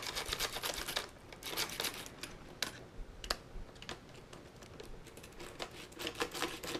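A small screwdriver unscrewing the battery-cover screws of a plastic Nerf Rival Zeus blaster: irregular light clicks and taps of metal on plastic.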